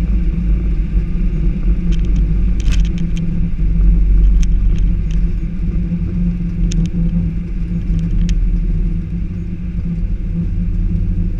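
Airbus A319 on its landing rollout, heard from the cockpit: a steady low rumble of the engines and of the wheels on the runway, which eases off about nine seconds in, with a few light rattling clicks.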